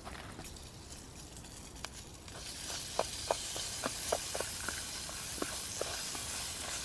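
Popcorn popping in a pot on a gas stove: a sizzling hiss that swells about two seconds in, with sharp pops coming irregularly over it.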